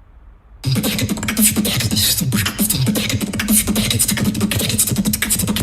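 Beatboxing that starts about half a second in after a brief pause: a fast, dense run of vocal clicks and percussive hits over a low hummed bass tone.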